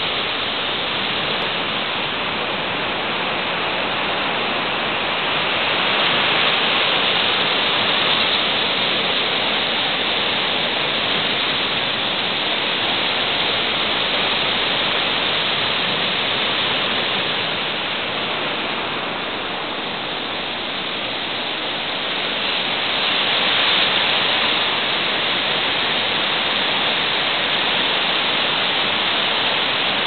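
River in spate: fast brown floodwater rushing over rapids and broken white water, a steady rushing noise that swells slightly a couple of times.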